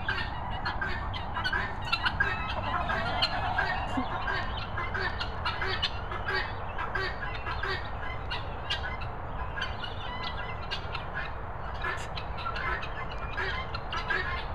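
Poultry flock calling, mostly guineafowl: a dense run of short squawks and chirps that never stops, over a steady low rumble.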